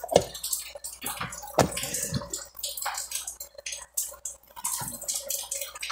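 Close-miked chewing of bread with mortadella: a run of quick wet clicking mouth sounds.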